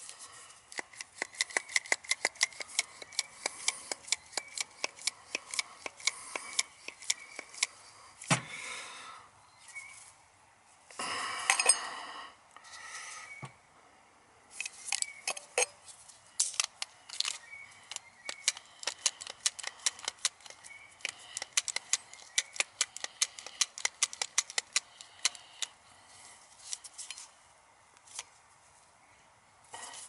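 Rapid metallic clicking of hand tools being turned on a copper refrigerant line tube. It comes in two long runs, with a louder scraping burst in the pause between them.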